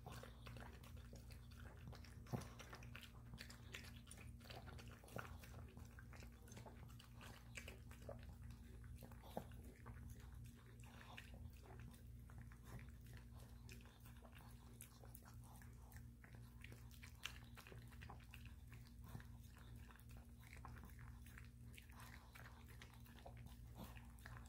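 Maltese dog eating brown rice soup from a plate: faint wet lapping and chewing, with many small irregular clicks.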